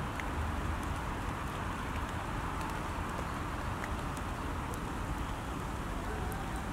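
Steady rain falling on a pond's surface: an even hiss flecked with faint drop ticks, over a low rumble.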